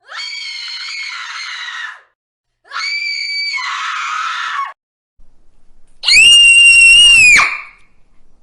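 Three separate screams, each held for one to two seconds with short silences between; the third is the loudest and shrillest.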